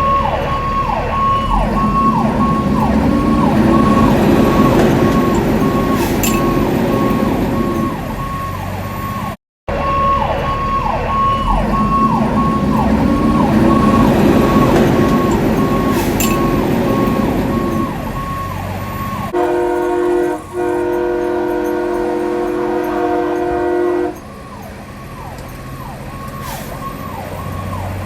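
A fire engine's siren sounds in quick falling sweeps, about two a second, over a low engine rumble, cutting out briefly partway through. About two-thirds of the way in, a multi-chime train horn mounted on the engine blasts a steady chord for about four seconds, with a short break near its start. Then the siren sweeps resume, quieter.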